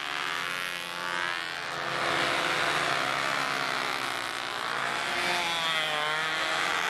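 Several control-line Bi-Slob model biplanes flying at once, their small two-stroke model engines buzzing together in a steady high-pitched drone. The pitch of each engine rises and falls as the planes circle past, one sweeping close by at the start.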